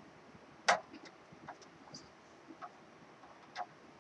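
Scattered light clicks and ticks of hand work on a desktop computer case, fitting the power supply and its screws. One sharp click comes about three-quarters of a second in, followed by several fainter ticks.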